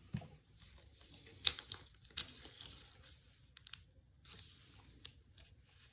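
Handling noises from trading cards and their packaging: scattered light clicks and soft rustling, the sharpest click about a second and a half in.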